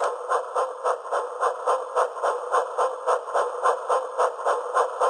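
Steam locomotive chugging sound effect, an even run of chuffs at about three to four a second.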